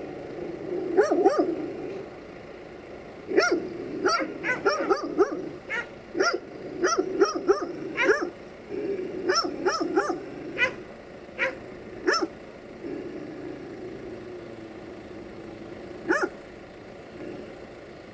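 A dog barking repeatedly: quick runs of barks in the first half, thinning to a few single barks, the last one near the end.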